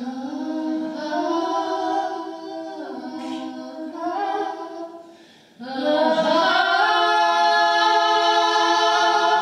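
Unaccompanied female singing in long held notes, in two phrases with a short breath about halfway through; the second phrase is louder.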